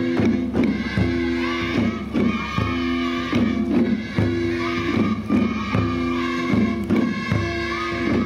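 Eisa-style drum dance: small paranku hand drums struck in unison about twice a second over a folk song with a sung melody and steady low accompaniment.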